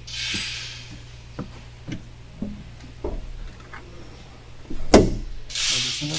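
Hands handling the metal wiper linkage and cowl parts: scattered light knocks and rubbing, with one louder knock about five seconds in, over a steady low hum.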